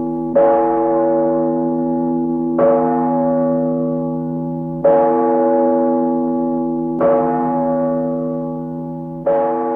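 A deep bell struck five times at an even pace, about every two seconds, each stroke ringing on with a steady tone and slowly fading until the next.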